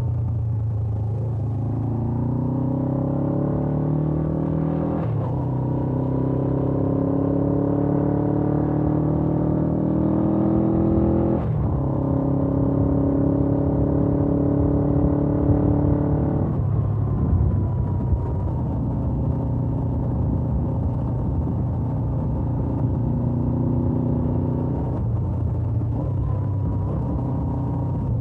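Stock Suzuki GS500F's 487 cc parallel-twin engine accelerating under load, rising in pitch, with upshifts about five and eleven seconds in. About sixteen seconds in the throttle closes and the engine drops back under a steady rush of wind.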